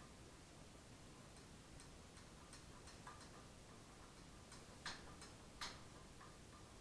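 Faint ratchet clicking as the two 8 mm bolts holding the ignition coil are backed out of a Predator 224cc engine: a few light clicks a second, with two sharper clicks about five and five and a half seconds in.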